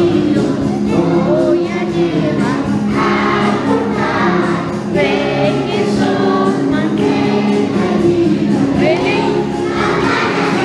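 Christmas song: a choir of voices singing over steady instrumental accompaniment.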